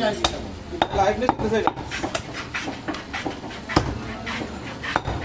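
Butcher's knife cutting goat meat on a wooden chopping block, with repeated sharp knocks of the blade against the wood, two of them louder near the end, amid background voices.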